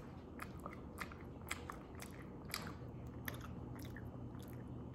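Close-up chewing of a soft mochi: irregular wet mouth clicks and smacks, thinning out near the end.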